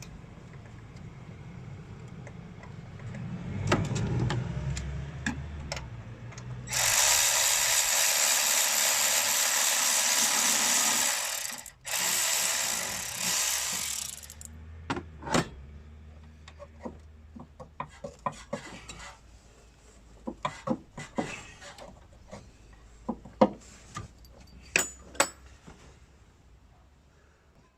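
A power tool runs for about five seconds, stops for a moment, then runs again for about two seconds. Scattered clicks and knocks of tools and metal parts being handled follow.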